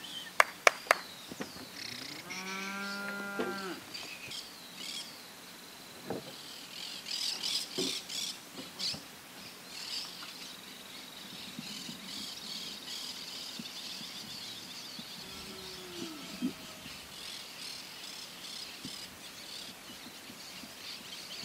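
Cattle mooing: one drawn-out moo lasting about a second and a half, starting about two seconds in, and a shorter, falling call near the end. Three sharp knocks come just after the start, and birds chirp in the background, busiest around seven to nine seconds.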